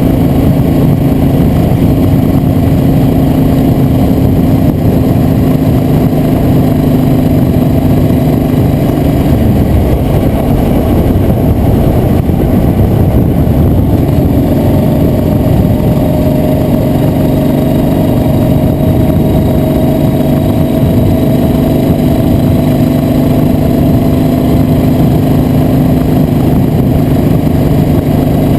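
A vehicle's engine running under way with a rumbling rush. Its steady note breaks up about nine seconds in, then a tone climbs slowly through the second half as it gathers speed.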